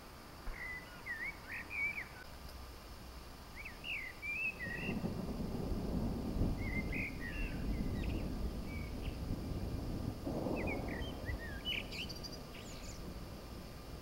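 A songbird singing short warbled phrases every couple of seconds. Under it, a low rumble of distant thunder builds about five seconds in, swells again around ten seconds, then fades.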